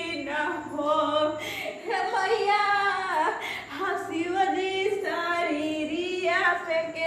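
A woman singing a devotional song unaccompanied, in long held notes that glide and bend.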